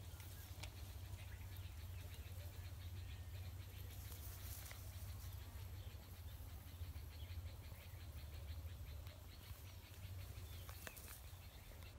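Faint outdoor ambience while the fisherman waits with his rod still: a steady low rumble with faint high hiss, scattered small ticks, and a brief rustle about four seconds in.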